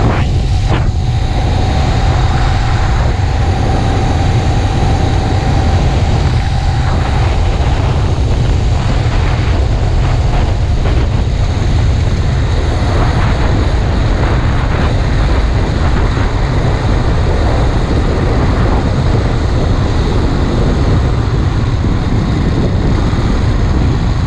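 Motorized bicycle's small four-stroke engine running steadily under way during its break-in run, with heavy wind noise on the microphone from riding. A steady drone sits over the engine for the first several seconds, then fades.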